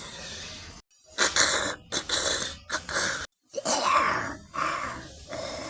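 Cartoon characters' wordless vocal sounds, grunts, groans and snort-like noises, in short bursts with abrupt cuts to silence between them.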